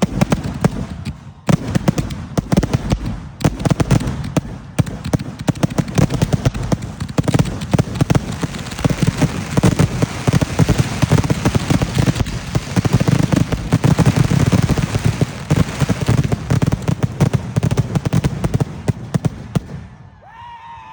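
Fireworks going off in a dense, continuous barrage of booms and crackling reports, many shells overlapping, then stopping abruptly near the end: a finale.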